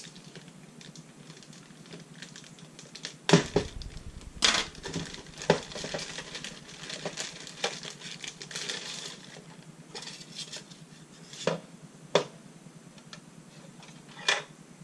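A clear plastic packaging bag crinkling and rustling as a plastic card shuffler is unwrapped, broken by sharp knocks of hard plastic and a folding knife against a tabletop. The loudest knock, a thump, comes about three seconds in.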